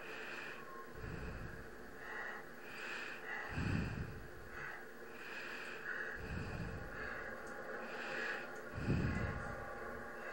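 A person breathing slowly and heavily, about one breath every two and a half seconds, each breath a rush of air, over a faint steady hum.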